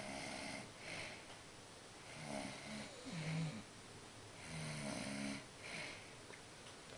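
A man snoring heavily in his sleep: three low snores, each about a second long and a couple of seconds apart, with breathy noise between them.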